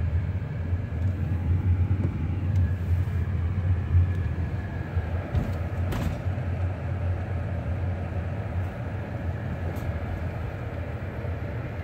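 Low, steady rumble of a car's engine and road noise heard from inside the cab while driving, with a faint click about six seconds in.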